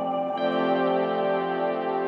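Background music: sustained ambient synth-like chords, changing chord about a third of a second in.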